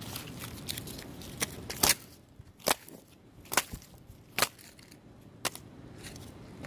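A cardboard camcorder being smashed: about eight sharp knocks and cracks come irregularly, roughly one a second, with a quick double knock near two seconds in.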